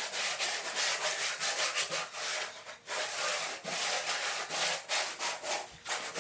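A wooden float rubbing back and forth over a Mapei Mapeguard UM uncoupling membrane, pressing it into the thinset mortar beneath. The float makes quick, rough scraping strokes, about two or three a second, with a short pause about halfway through.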